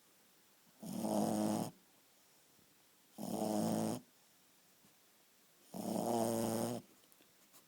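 Shih Tzu snoring in its sleep: three rhythmic snores, each about a second long, roughly every two and a half seconds.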